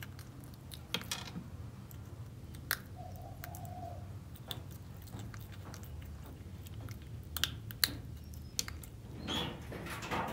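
Baby macaque chewing coated peanut candy, with sharp crunches every second or two.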